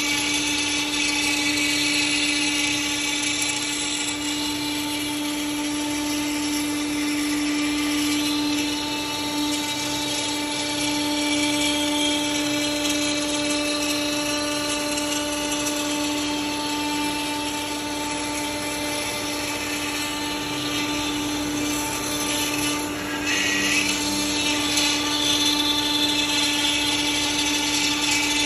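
CNC router spindle running with a steady high whine while machining a wooden board.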